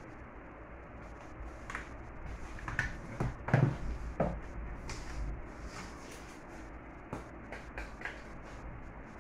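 Knocks and clatter of objects being handled and set down, with a heavier thud about three and a half seconds in and a few lighter clacks after it.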